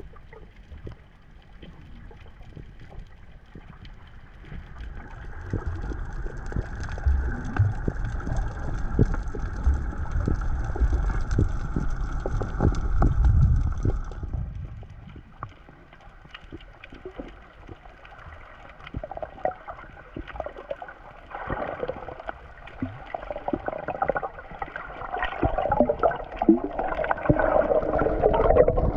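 Muffled underwater sound of a submerged camera: water movement and low rumbling, with gurgling bubbles that grow louder over the last few seconds.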